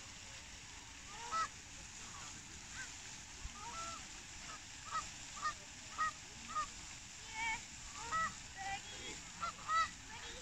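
Geese honking: a string of short calls, a few scattered ones at first, then coming about every half second from a few seconds in.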